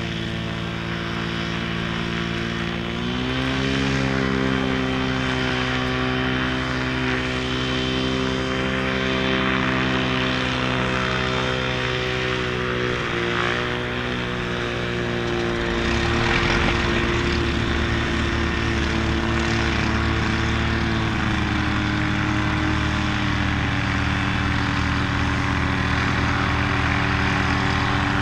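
A light aircraft's propeller engine, the DG-800A motor glider's, running steadily while taxiing. It speeds up about three seconds in, eases back about halfway through, and shifts speed a couple more times later.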